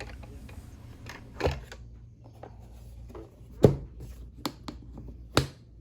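Handling noise: about five sharp clicks and knocks of hard objects being moved or set down, the loudest a little past halfway and another near the end, over a low steady hum.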